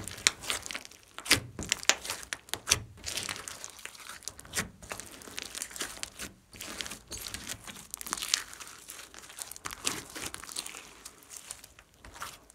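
Hands squeezing, pressing and pulling a large glossy slime mixed with foam beads: an irregular run of sticky crackles, clicks and pops as air pockets in the slime burst.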